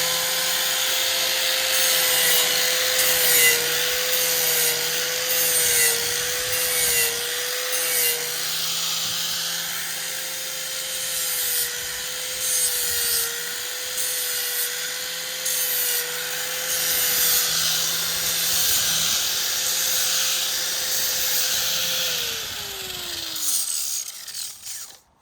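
An electric power tool sharpening the steel edge of a folding survival shovel. Its motor runs at a steady pitch over a rough grinding rasp, the pitch dipping slightly each time the tool bears on the blade, and it winds down with a falling pitch near the end.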